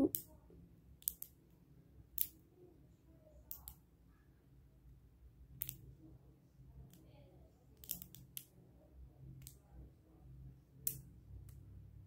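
Plastic links of a Wacky Tracks snap-and-click fidget chain clicking as they are twisted back into the toy's normal shape: faint, sharp clicks at irregular intervals, some in quick pairs.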